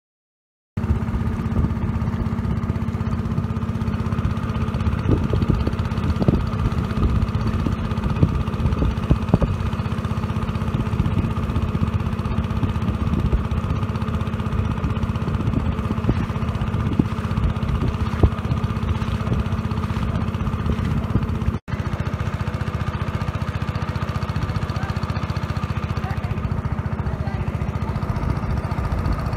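An engine running steadily close by, a dense low drone with no change in speed, which drops out for an instant about two-thirds of the way through.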